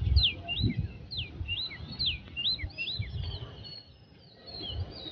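Birds chirping in a rapid run of short, sliding high notes that thins out near the end, over low rumbles on the microphone.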